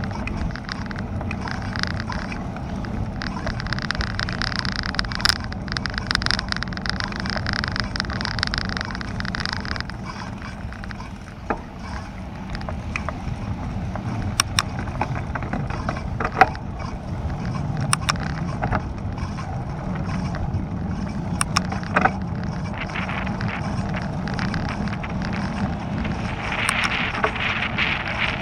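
Steady wind and tyre noise from riding a bicycle on an asphalt road, heard from a camera on the bike. Scattered sharp clicks and knocks come from the bike rattling over bumps, with hissier stretches from about three to ten seconds in and again near the end.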